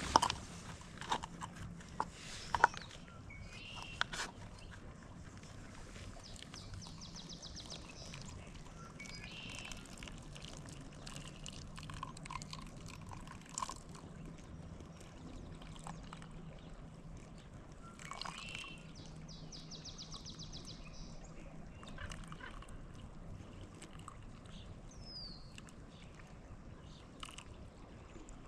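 Riverside ambience: steady flowing-water sound with songbirds trilling twice and chirping, and a few sharp clinks in the first few seconds.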